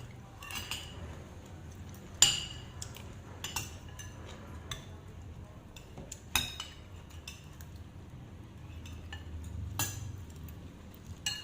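Cutlery clinking against dishes while eating: about six sharp, ringing clinks spread a second or more apart, the loudest about two seconds in.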